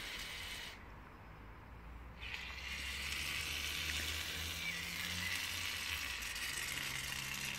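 Gillette shaving-foam aerosol can hissing as foam is sprayed out. It stops for about a second and a half, then sprays again steadily.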